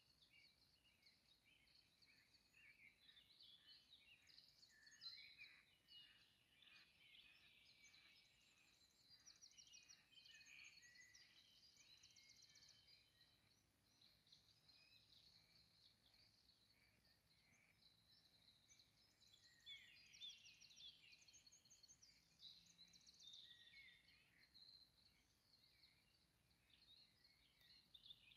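Several songbirds singing faintly, with overlapping chirps and quick high trills.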